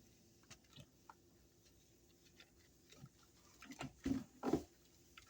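Small plastic toy pieces and packaging being handled: scattered light clicks and rustles, with a few louder knocks and rustles near the end.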